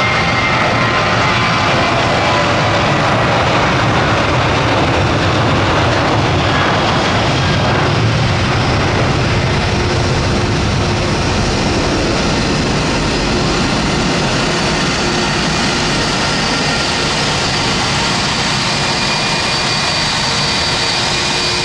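Boeing 737-800's CFM56-7B jet engines at takeoff thrust, a loud, steady jet noise as the airliner rolls down the runway, lifts off and climbs away.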